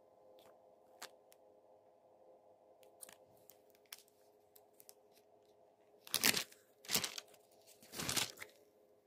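Three short, loud rustling noises in the second half, over a faint steady hum and a few light clicks.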